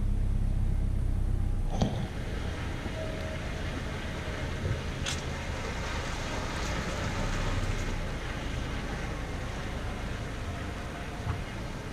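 Honda Accord Sport moving slowly: low engine and road rumble, loudest for the first two seconds and ending in a single sharp knock, then quieter steady running with a few faint clicks.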